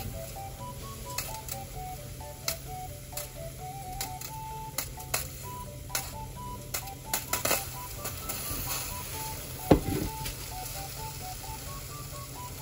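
A lidded stainless sierra cup of rice boiling over a small alcohol stove: the cup and lid tick and click irregularly over a steady low rush, with one louder click about ten seconds in.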